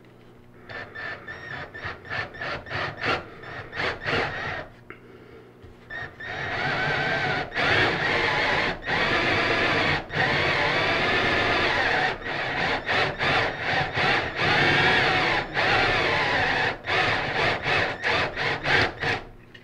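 Handheld power drill boring a 1-inch Forstner bit into a wooden board. Short start-stop bursts of the drill in the first few seconds, a brief pause, then steady drilling from about six seconds in with a few short breaks in the trigger.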